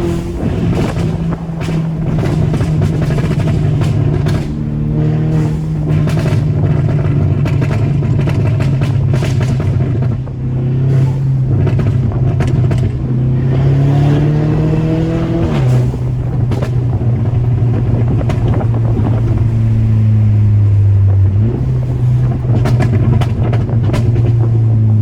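MK6 VW GTI's tuned turbocharged four-cylinder engine pulling through the gears, its pitch climbing steadily and dropping sharply at two automatic upshifts, about 15 and 21 seconds in. Short sharp cracks, thickest in the first ten seconds, are the tune's exhaust pops and crackles.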